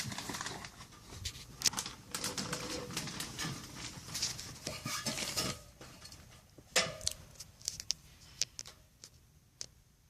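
Objects being handled: irregular scraping and clattering with sharp clicks and knocks, busiest in the first six seconds, then a knock and a few scattered ticks.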